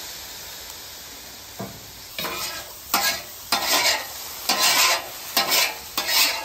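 Metal spatula scraping across a flat-top griddle, turning boiled tortellini in about seven quick strokes, over a faint sizzle from the wet pasta steaming on the hot surface.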